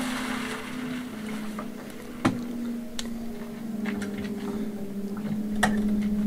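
Small electric cement mixer running with a steady motor hum while its drum turns wet concrete, with a few sharp knocks from the mix in the drum. Water being poured into the drum trails off in the first second.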